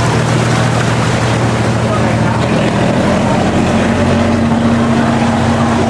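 Pickup truck engine running as the truck wades through floodwater, a steady low hum over a wash of noise, with a higher steady engine note coming in about four seconds in as it passes close.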